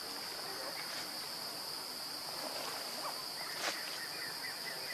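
Steady high-pitched drone of insects, with one sharp click about three and a half seconds in.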